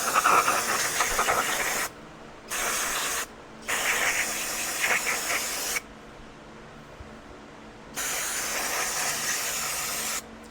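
Aerosol brake cleaner sprayed into a carburetor's passages in four hissing bursts of one to two seconds each, cutting on and off sharply, with a longer pause in the middle.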